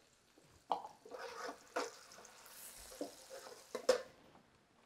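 Doubanjiang paste frying in hot oil in a wok: short spells of sizzling as it is stirred, with a spatula scraping and tapping against the wok, the loudest a sharp tap near the end.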